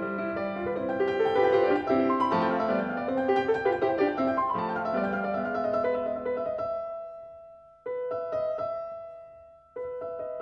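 Background piano music: a melodic passage that thins out to sustained chords, two of which cut off abruptly near the end.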